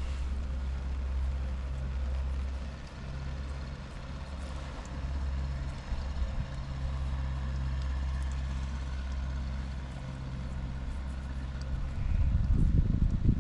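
A steady low engine hum, with loud gusts of wind buffeting the microphone near the end.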